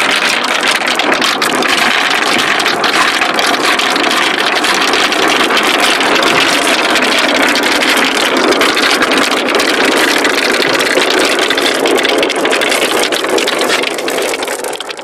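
A large batch of marbles rolling and clattering together down a wooden marble-run slope: a dense, continuous rattle of many small clicks that thins out about a second before the end.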